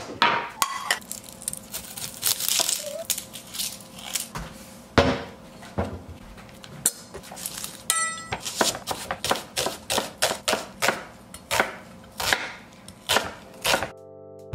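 Knocks and clinks of kitchen things being handled on a counter, then a chef's knife dicing an onion on a wooden cutting board, sharp even chops about three a second. Music starts near the end.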